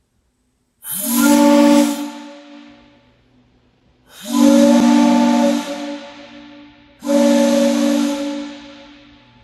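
3D-printed multi-chime steam whistle replica blown with compressed air through a 1-inch ball valve, sounding three blasts. Each blast is a chord of several notes over a hiss of rushing air, held about a second and then fading away.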